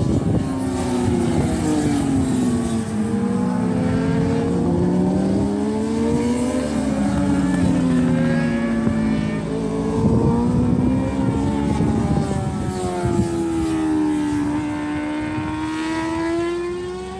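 Multirotor camera drone's propellers whining, the pitch wandering up and down as the motors change speed while it manoeuvres.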